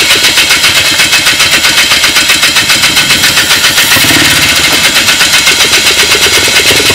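Polaris quad's engine running rough with a rhythmic misfire, a loud uneven popping beat of about six pulses a second; it picks up briefly about four seconds in. The owner does not know why it misfires.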